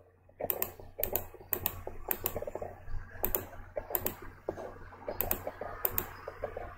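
Irregular clicking and tapping of a computer mouse and keyboard, about two sharp clicks a second, over a low steady hum.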